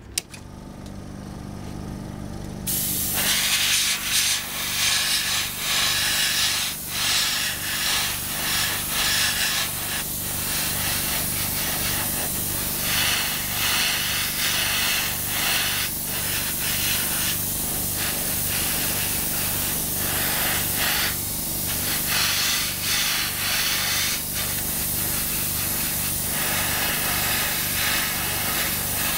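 Airbrush spraying paint: a high hiss that sets in about three seconds in and comes and goes as the trigger is worked. Under it runs a steady low machine hum with a regular pulse.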